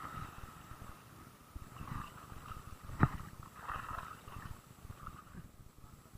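Shallow sea water sloshing and lapping over rocks, with a low uneven rumble of wind on the microphone. There is one sharp knock about three seconds in.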